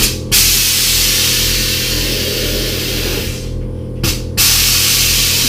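Background music with a steady pulsing bass beat, twice overlaid by a loud rushing hiss that starts abruptly. The first hiss fades out after about three seconds; the second comes in about four and a half seconds in.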